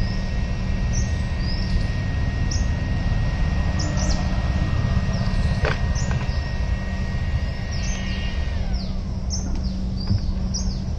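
BluArmor A10 helmet cooler's small fan running with a thin, steady whine that winds down and fades near the end, under a steady low rumble, with birds chirping throughout.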